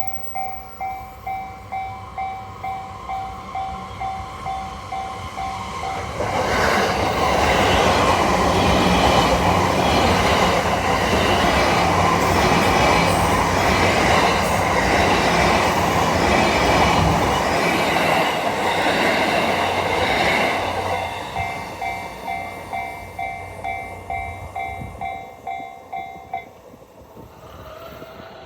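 Level-crossing warning bell ringing about twice a second as a Yamanote Line train passes over the crossing. The train's noise drowns the bell for about fourteen seconds. After the train has gone, the bell rings on and stops near the end.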